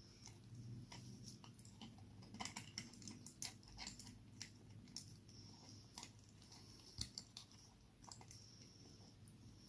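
Faint, irregular small clicks and taps of metal on metal as a wristwatch's case back and tools are handled while the case back is fitted, over a low steady hum.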